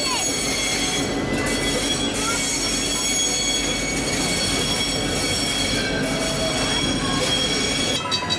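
A passenger train, a Percy-themed locomotive hauling a coach, rolls slowly past with its wheels squealing on the rails: a steady high-pitched ringing over a continuous rumble. The sound changes abruptly near the end.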